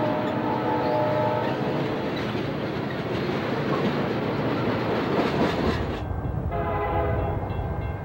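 Freight cars rolling past at close range with steady rumbling and wheel clatter. A train horn sounds at the start and again from about six and a half seconds in, blown by an approaching Amtrak passenger train.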